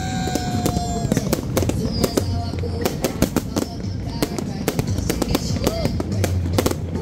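Aerial fireworks shells bursting in a display: a dense, continuous run of bangs and crackles.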